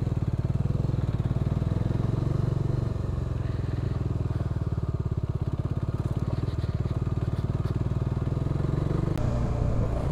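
Bajaj Dominar 400's single-cylinder engine running steadily as the motorcycle is ridden, its exhaust pulsing in a fast, even beat. A little before the end there is a short click and the engine note changes.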